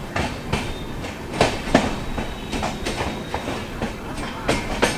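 Passenger train coach running along a station track, heard from the open doorway: a steady rumble with a string of sharp, irregularly spaced clacks as the wheels pass over rail joints.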